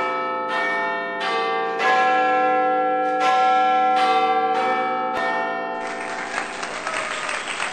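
Intro sting of chiming bells: about eight struck bell notes in five seconds, each ringing on into the next. For the last couple of seconds this gives way to a noisy rush of sound.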